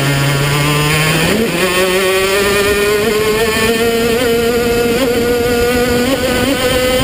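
Racing kart engine recorded on board. It runs at low revs, then about a second in it picks up sharply and climbs steadily in pitch as the kart accelerates.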